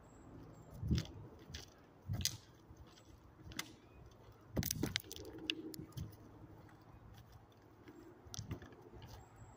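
Footsteps crunching on railway ballast gravel and dry leaves, irregular steps roughly once a second.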